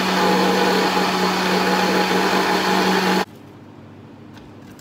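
Electric countertop blender running steadily as it purees watermelon, with a steady motor hum under the whirring. It is switched off about three seconds in and stops abruptly, leaving only a few faint handling clicks.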